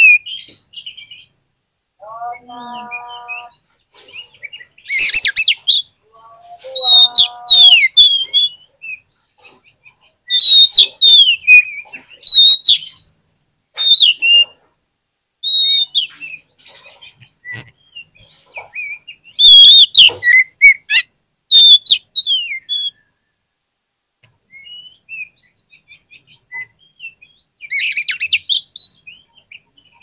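Oriental magpie-robin singing, in loud bursts of varied quick whistles and slurred notes, with pauses of a second or more between phrases.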